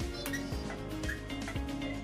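Background music with a steady beat and held tones.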